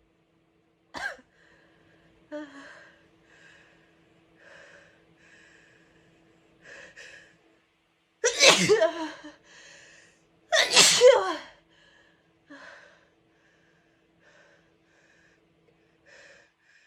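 A person's sneezing: a run of short catching breaths builds up, then two loud, powerful sneezes come about two seconds apart, followed by soft breaths.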